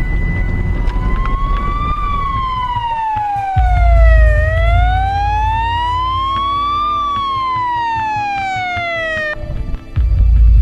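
Police car siren on a slow wail, rising and falling in pitch twice, then cutting off suddenly near the end, over a deep low rumble.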